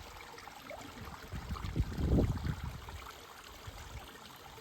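Faint running water of a small stream trickling over rock, with a low rumble swelling and fading a little under two seconds in.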